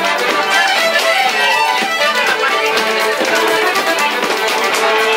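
Fiddle playing a lively traditional Irish dance tune, with sharp, rhythmic taps of sean-nós dance steps on the floor.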